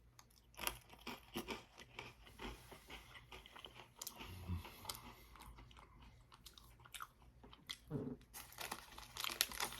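Close-up chewing and crunching of chocolate-covered Pocky biscuit sticks, several eaten together, in a quick irregular run of crisp crunches.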